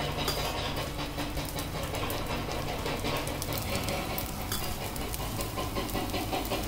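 Dosa batter and ghee sizzling on a hot cast-iron tawa: a steady crackling fizz.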